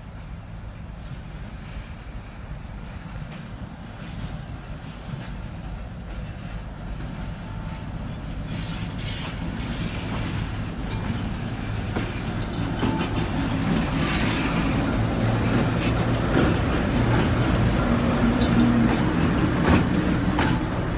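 ChME3T diesel shunting locomotive running, its six-cylinder diesel engine humming steadily and growing louder as it comes closer. Sharp clicks from the wheels over rail joints come partway through and again near the end.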